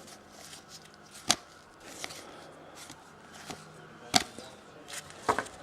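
Trading cards being handled and flipped through by hand, with two sharp taps, about a second in and about four seconds in, and a few softer clicks near the end.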